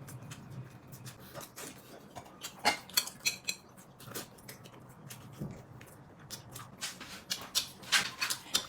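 Tableware clicking and clinking as people eat at a table: utensils tapping against bowls and plates in scattered small knocks. The loudest clinks come about three seconds in, and the clicks grow busier near the end.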